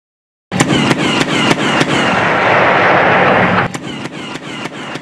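Autocannon on a Boxer 8x8 wheeled fighting vehicle firing a rapid string of single shots, about four a second, each with a short falling ring. It starts abruptly, and the sound thins a little partway through while the firing goes on.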